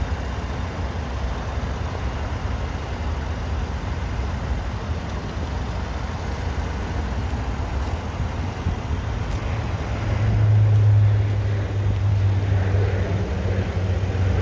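Mercedes-AMG C43's twin-turbo V6 idling with a steady low rumble, growing louder about ten seconds in.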